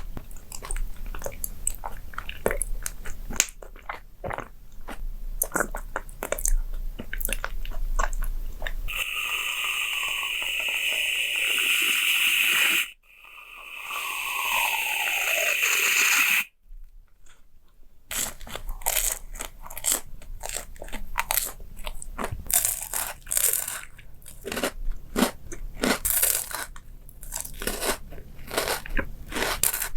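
Close-miked eating sounds: crisp crunching bites and chewing, a dense run of sharp crunches. About nine seconds in, this gives way to two spells of steady hiss with falling tones, each a few seconds long and cut off abruptly, followed by a brief quiet before the crunching starts again.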